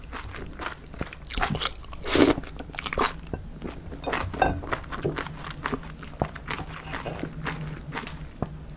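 Close-miked eating: crunchy bites and chewing made up of many small irregular crackles, with one loud crunch about two seconds in.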